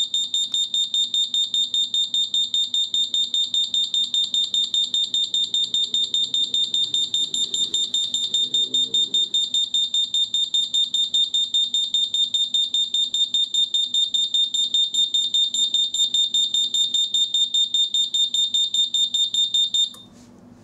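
Gas leakage detector's alarm siren sounding: a high-pitched beep pulsing rapidly, several times a second, triggered by flammable gas from a lighter. It cuts off suddenly near the end as the gas clears.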